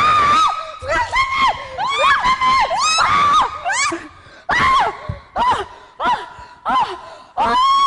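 A woman screaming in a run of about a dozen short, high-pitched shrieks, each rising and falling, in fright as she gropes among live animals she cannot see in a tank.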